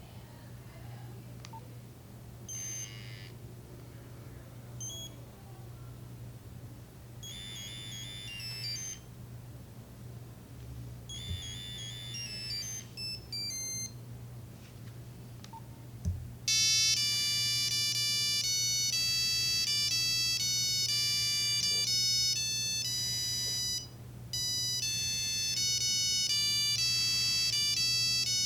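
Nokia 3395 mobile phone playing monophonic ringtone tunes. First come a few short snatches of beeping notes, then a click a little over halfway in. After that a loud melody of quick electronic notes carries on, with one brief break near the end. A steady low hum runs underneath.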